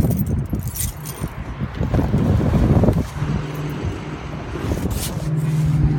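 Phone and clothing handling noise as a person opens a car door and gets in, with a few clicks early on. A steady low car engine hum comes in about halfway through.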